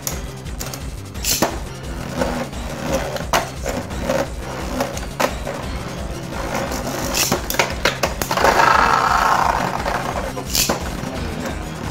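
Beyblade spinning tops clicking and knocking against each other and against the walls of a plastic stadium. About eight and a half seconds in there is a louder rasping stretch that lasts about a second and a half.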